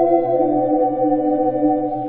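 Ocarina orchestra holding soft, sustained chords in several parts, with a low bass note underneath; a few of the upper notes shift pitch early on.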